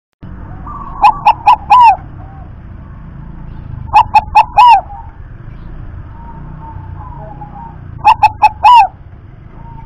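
Zebra dove (perkutut) cooing its song three times, about three seconds apart. Each phrase is four quick notes, the last held longer and bending.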